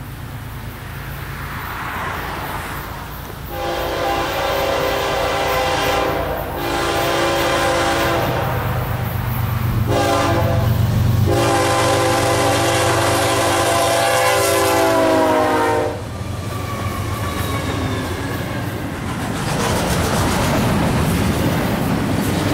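Diesel locomotive horn on a GE-led BNSF lashup (ES44DC in front) blown in the grade-crossing pattern of long, long, short, long, the last long note dropping in pitch as the locomotives pass. Under it the low rumble of the diesel engines, then the steady rolling of the double-stack container cars going by.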